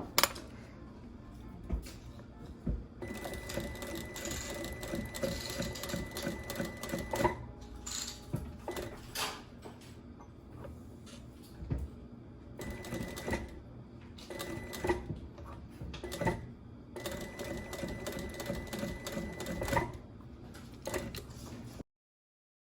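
Sewing machine stitching leather in runs of a few seconds, a steady hum while it sews with clicks and knocks between runs. The sound cuts off suddenly near the end.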